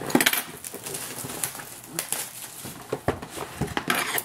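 A sealed cardboard trading-card box being cut open and handled: irregular crinkling, scraping and small clicks of plastic wrap and cardboard.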